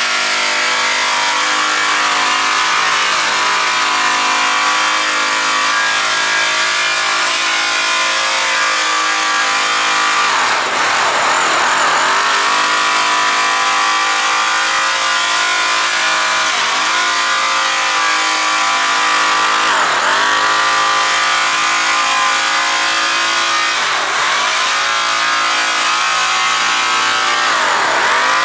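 Electric right-angle buffer running a yellow buffing wheel against an aluminum driveshaft, a steady high motor whine. Its pitch sags and recovers several times as the wheel is pressed onto the shaft and eased off.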